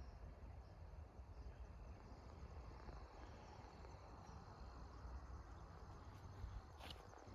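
Faint outdoor quiet: a steady high insect trill, typical of crickets, over a low rumble on the microphone, with a small click near the end.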